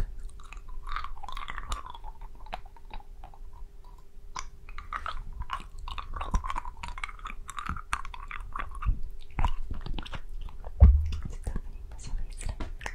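Close-miked wet mouth sounds of licking a hard candy: many small tongue and lip clicks and smacks, with stretches of soft, unintelligible whispering between them. A single louder low thump comes about eleven seconds in.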